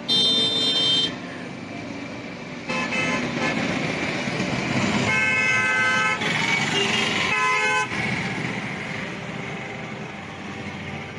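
Vehicle horns honking several times: a high-pitched blast about a second long at the start, then others around three, five and seven and a half seconds in. Underneath is a steady wash of surf.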